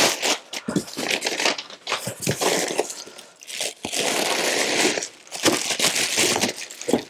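Packaging crinkling and rustling in irregular bursts with sharp crackles as a camera box is unwrapped; it cuts off suddenly at the end.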